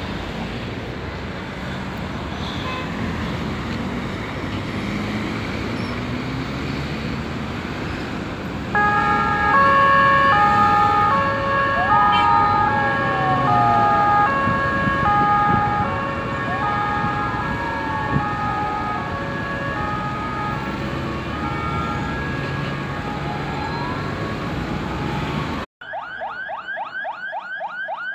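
Steady traffic noise. About nine seconds in, an emergency vehicle's German-style two-tone siren starts sounding, alternating high and low notes, with slow falling wails from a second siren sliding over it. Near the end the sound cuts abruptly to a fast, rapidly rising yelp siren.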